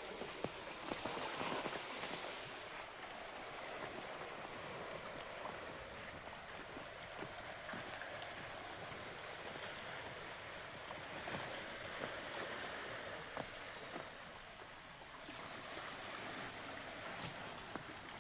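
Steady rush of sea water washing and lapping at the shore, with a few faint clicks.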